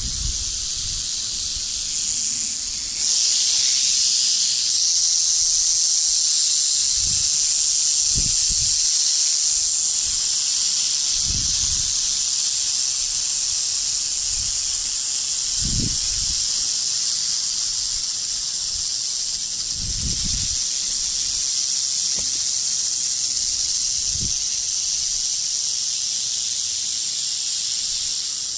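Several rattlesnakes rattling: a continuous high buzz that grows louder about three seconds in and then holds steady, with a few short low thumps now and then.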